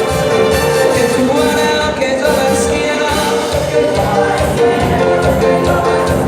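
Latin band music with a singing voice, playing loudly and steadily.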